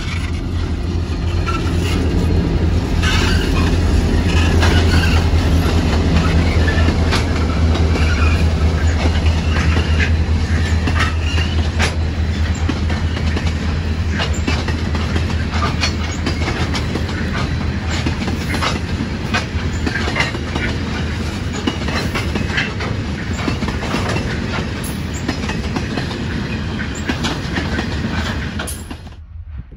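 Diesel-electric locomotives G523 and XR559 passing close by with a deep, steady engine drone that fades over the first half as they move away. Their string of grain hopper wagons follows, wheels clicking rhythmically over the rail joints, until the sound cuts off suddenly near the end.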